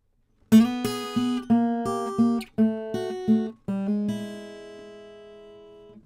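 An Eastman E10-00 acoustic guitar, Adirondack spruce top with mahogany back and sides, fingerpicked unaccompanied. After a brief pause comes a quick run of about a dozen plucked notes and chords, then a final chord left ringing and slowly fading for the last two seconds.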